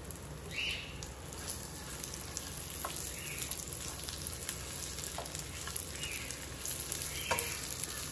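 Pitted dates frying in hot ghee in a pan, a steady sizzle with a few light stirring strokes against the pan.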